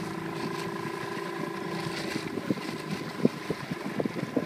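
Small outboard motor running at a steady pitch over wind and water noise. About two seconds in the motor's tone drops away, leaving irregular low thumps and wind buffeting the microphone.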